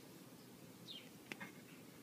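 Near silence, with one faint high chirp falling in pitch about a second in and a single soft click shortly after.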